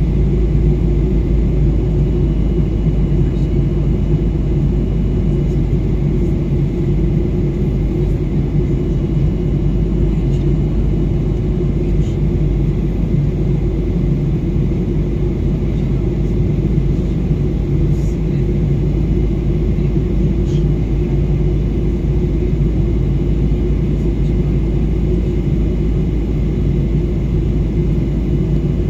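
Jet airliner cabin noise in cruise, heard from a window seat by the wing: a loud, deep, even rumble of engines and airflow, with a faint steady high hum above it.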